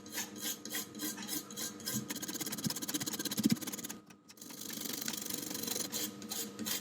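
Scrubbing and rubbing on an Xbox Series X motherboard, cleaning it with isopropyl alcohol. There are repeated short strokes, then a quick rasping run about halfway through, a brief pause, and more rubbing.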